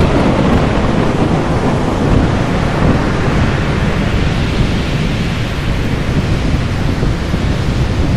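Thunderstorm: heavy, steady rain with a deep rumble of thunder underneath.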